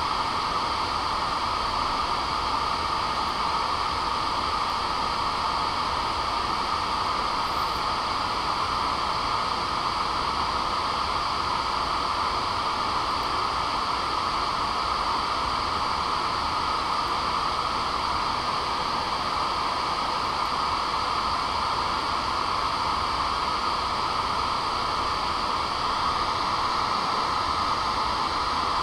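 Steady hiss of a noise test signal played through a bare Legacy 696-2 woofer in free air, driven by a Tripath TK2050 amplifier for a frequency-response measurement. The hiss is strongest in a band around 1 kHz and thin in the bass, as an unboxed driver sounds.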